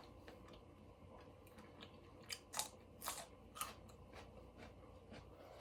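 Extra hot Cheetos being bitten and chewed close to the microphone, with a handful of sharp crunches in the middle of otherwise quiet chewing.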